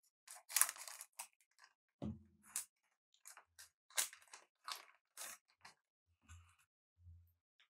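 Trading cards and their plastic pack wrappers being handled: a run of short, irregular crinkles and scrapes as cards are slid and sorted.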